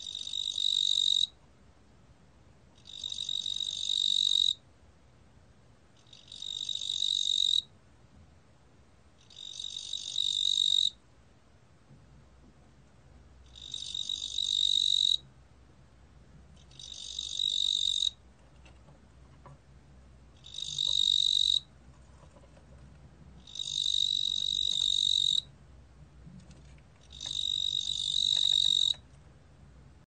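Male fat cricket (뚱보귀뚜라미) singing at 21 °C: nine high-pitched bursts of song about three seconds apart, each growing louder over a second or two and then stopping abruptly.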